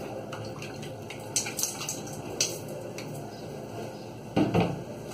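Liquid dripping and sloshing in a small pot as long wet hair is dipped and worked in a watery hair-toner mixture, with light clinks of the pot; a louder clatter and splash a little over four seconds in.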